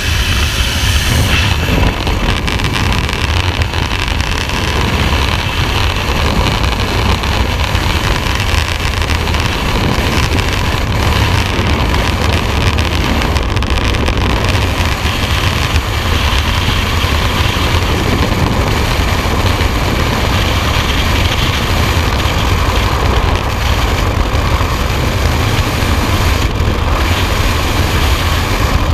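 Freefall wind rushing over a helmet-mounted camera's microphone, a loud, steady rumble with no letup. About a second and a half in, the sound of the aircraft's open door gives way to the steady freefall wind.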